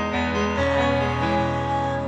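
Piano sound from a digital stage keyboard playing an instrumental passage of sustained chords, with the chord changing about half a second in.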